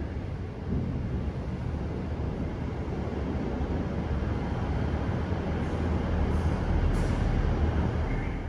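Diesel multiple-unit train running through the station directly below, a steady low engine rumble with wheel and rail noise that grows louder as the train passes underneath.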